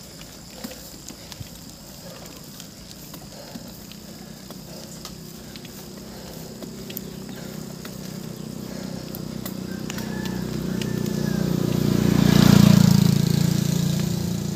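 A motor vehicle's engine approaching and passing close by on the road. It grows steadily louder for about ten seconds, is loudest about twelve seconds in, then fades. A few light clicks are heard before it.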